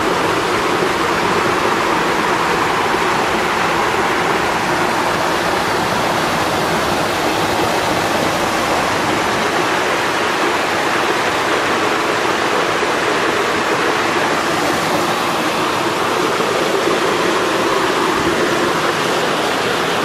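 Water of a small waterfall and stream rushing over rocks and boulders, a steady loud rush.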